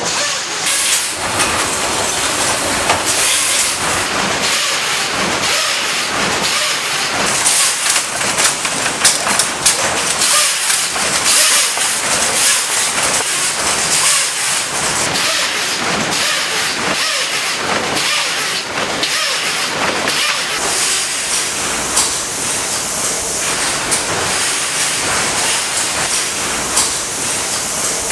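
Knitting machinery running in a knitwear mill: a loud, steady hiss with a regular mechanical clatter running through it.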